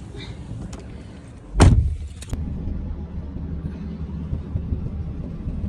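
A car door shutting with one heavy thump, followed by the car's steady low rumble, heard muffled as if from inside the closed cabin.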